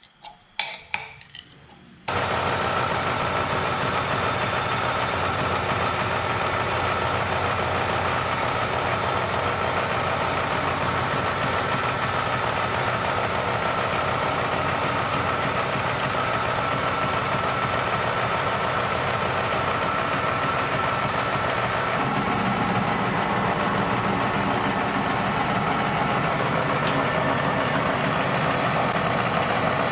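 A few metal clinks of hand tools, then from about two seconds in the steady running of a milling machine as a 3/8-inch two-flute carbide end mill cuts across the turbo flange face of an old cast exhaust manifold. The cutting noise carries a steady high tone and shifts slightly in the low end a little over halfway through.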